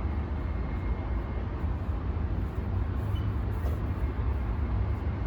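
Electric fan running: a steady rush of moving air with a heavy, fluttering low rumble where the airflow hits the microphone.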